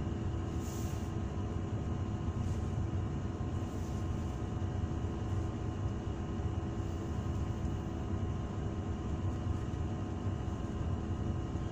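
Steady low rumble and hum inside a vehicle cab, with a few faint steady tones over it.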